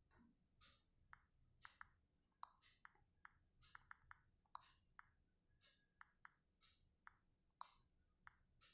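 Very faint, irregular clicks of key taps on a smartphone's on-screen keyboard as a search term is typed, about twenty taps spread unevenly.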